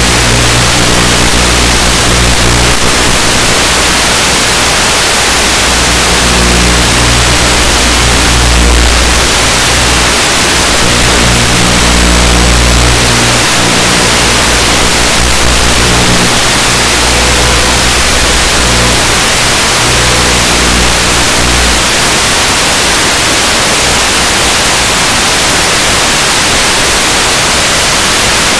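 Loud, steady hiss of static from an analog FPV video link. Under it, a low hum from the aircraft's motor comes and goes several times with the throttle, then stops about three-quarters of the way through.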